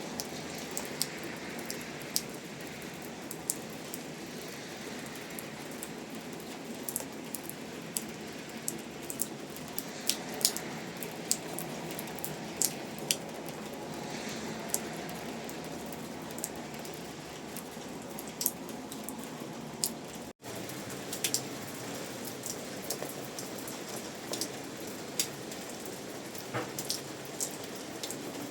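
Steady rain falling, with many separate drops tapping sharply on a surface over the even patter. The sound cuts out for an instant about two-thirds of the way through.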